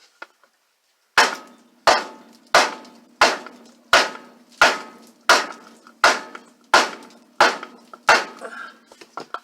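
Sledgehammer blows on a car's front wheel that has rusted itself onto the hub: about eleven hard, evenly spaced strikes, roughly one every two-thirds of a second, each with a metallic ring, followed by a few lighter taps near the end. The wheel stays seized on.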